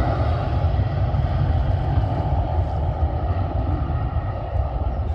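Jet airliner's engines running as it moves along the runway, heard across the airfield as a steady rumble.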